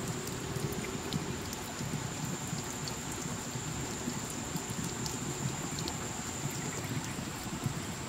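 Water dripping and pattering onto wet rock and leaves, a steady patter with scattered small drip clicks, over a thin steady high-pitched tone.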